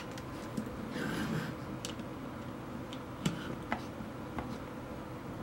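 Light clicks and taps of a small precision screwdriver working screws out of a Canon Rebel T3 camera body, with a short rustle of handling about a second in.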